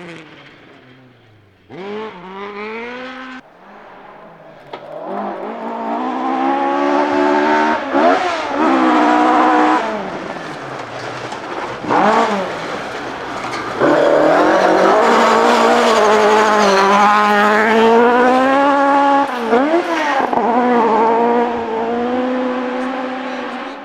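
Ford Escort Mk2 rally car engines revving hard in several short passes. The pitch climbs through the gears and drops sharply at each gear change or lift-off, with a few quick swoops down and back up.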